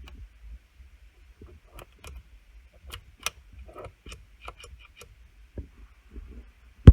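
Scattered light metallic clicks and ticks from the gearshift mechanism of an opened Honda CT70 engine being worked by hand, the shifter not catching into gear. A single loud sharp knock comes near the end.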